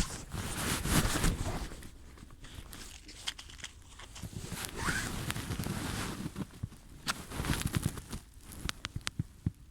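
Phone microphone muffled inside a pocket: fabric rustling and scraping against it, with crunching and scattered clicks.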